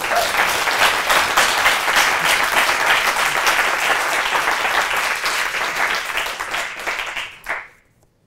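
Audience applauding: dense clapping that tails off and stops near the end.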